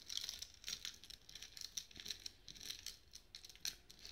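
Silver anklet chain with its small bells clinking and rustling irregularly as fingers fish it out of a small ceramic bowl of silver-cleaning dip.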